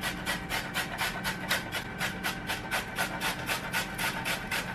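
A carrot being grated on a metal box grater: quick, even rasping strokes, about four to five a second.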